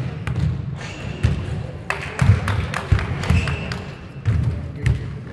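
Basketball bouncing and thudding on a hardwood gym floor, with scattered sharp knocks and voices echoing in the hall.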